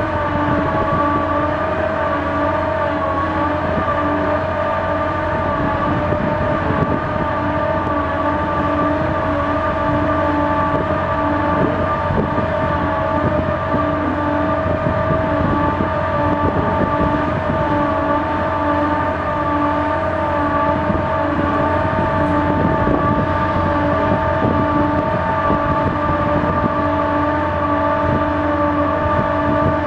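Woltman THW 7528-D drilling rig running, its Caterpillar C18 diesel engine going steadily under several steady whining tones, with a lower tone that keeps cutting in and out.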